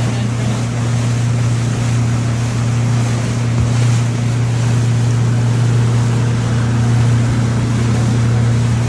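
Motorboat engine running at a steady pitch, with the rush of water and wind around the hull.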